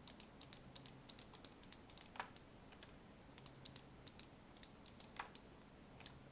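Faint, irregular tapping of computer keyboard keys, a few clicks a second, as shortcuts are entered.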